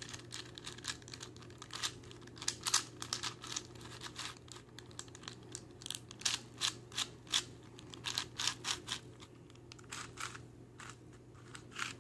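Shengshou 4x4 speed cube, lubed, being turned by hand: irregular plastic clicks and clacks of its layers, several a second.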